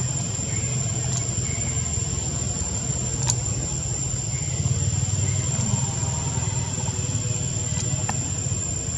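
Steady outdoor background: a constant low engine-like rumble with a steady high-pitched insect drone over it. A few faint clicks, the sharpest a little past three seconds in.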